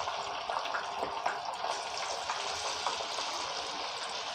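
Turmeric-coated grouper frying in hot oil in a wok: a steady sizzle with small crackles and spits.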